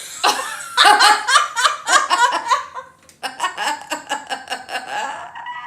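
Loud, hearty human laughter in rapid pulses: two long fits, with a short break for breath about three seconds in.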